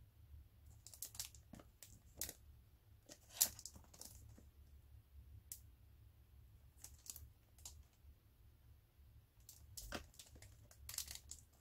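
A cellophane-wrapped cardboard box of 5.25-inch floppy diskettes being handled and turned over in the hands: faint scattered crackles and clicks from the plastic wrap and fingers on the box, the sharpest about three and a half seconds in, over a low steady hum.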